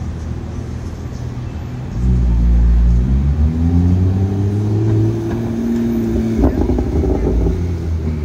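Porsche 911 flat-six engine accelerating hard away, starting loud about two seconds in with its note rising in pitch for a few seconds before levelling off, with a short break in the note about six and a half seconds in.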